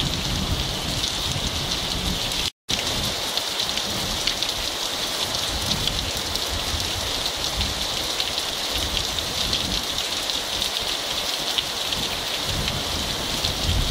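Heavy rain pouring steadily onto trees and ground: a dense, even patter of drops. The sound drops out for a split second about two and a half seconds in.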